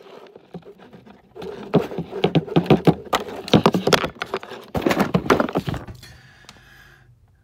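Handling noise from a phone camera being moved and covered: close rubbing with a quick, irregular run of knocks and clicks on the microphone for about four seconds, dying away to faint background noise near the end.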